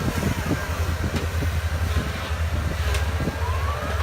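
Heavy diesel machinery engine running steadily, with a few sharp knocks and a rising whine near the end.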